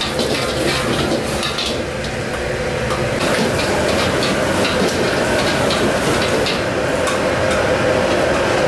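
Vegetables and seafood sizzling loudly as they are tossed and stir-fried in a wok over a gas flame, with repeated clinks and scrapes of the utensil against the wok over a steady background roar.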